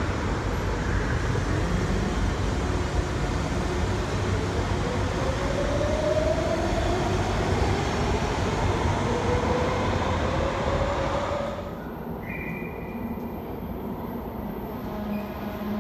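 LA Metro D Line subway train pulling out: a steady rumble with the traction motors' whine rising in pitch as it gathers speed. After a sudden cut it gives way to quieter station hum, with a train approaching far down the tunnel.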